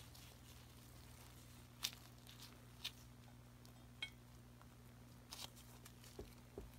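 Faint clicks and light metallic clinks from small brass fittings being handled and threaded together by gloved hands, a handful of them spread out, over a steady low hum.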